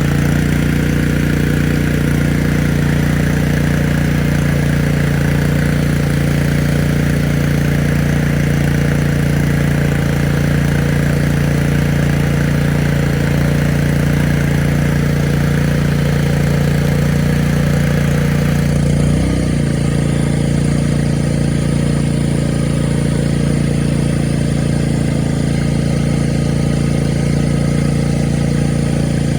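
Small inverter generator's engine running steadily. About nineteen seconds in, its pitch shifts slightly and the high hiss drops away.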